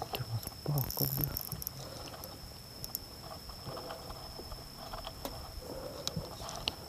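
DMK Bluemoon 1500 spinning reel on an ultralight rod being cranked and handled, with a few knocks and rustles of handling in the first second or so and faint clicks after that. A steady high-pitched tone sounds beneath.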